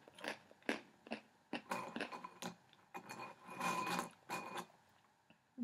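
Crunchy chewing of hard pretzels close to the microphone: a series of short, sharp crackles. About three seconds in, pretzels rattle against the glass as a hand rummages in the bowl.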